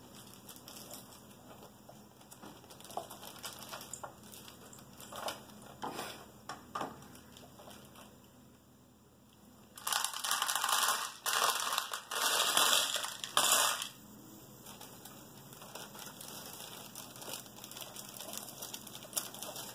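Packaging crinkling loudly for about four seconds, starting about ten seconds in, as drone frame standoffs are unpacked. Scattered small clicks and taps of parts being handled come before and after.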